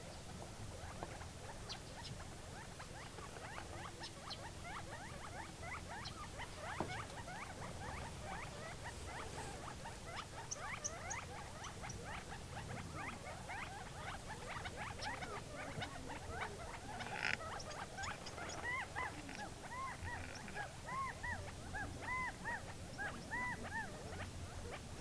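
A covey of quail foraging on the ground, giving many soft overlapping chips and chatter calls. From about two-thirds of the way through, a run of short rising-and-falling calls comes about two a second.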